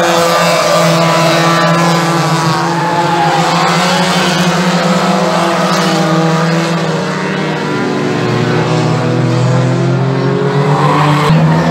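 Banger racing cars' engines running hard as a pack of cars takes a bend and pulls away down the straight. The engine note dips a little after the middle and rises again near the end.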